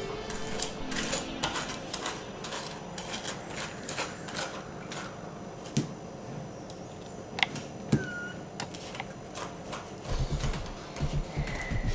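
Table knife spreading butter on toast: repeated short scratchy scrapes across the crisp surface, with a few sharper knife knocks.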